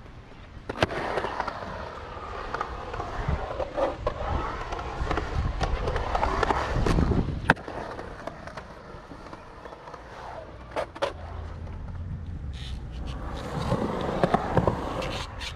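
Skateboard wheels rolling through a bowl, the rumble swelling and fading as the board carves, with a few sharp clacks of the board. The loudest clack comes about seven and a half seconds in.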